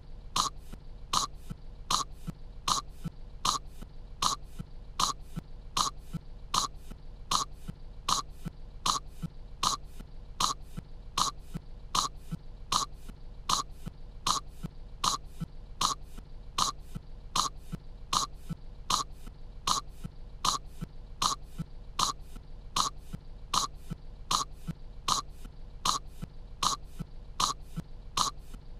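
A cartoon girl's short, sharp coughs, looped so that they repeat in an even rhythm of a little under two a second, as she chokes on kettle corn.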